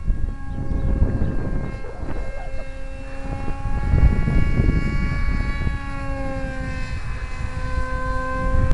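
RC F-117 model's 2200 kV brushless electric motor and 6x4 propeller whining in flight, the pitch drifting slowly up and down as the plane flies around. Wind rumbles on the microphone underneath.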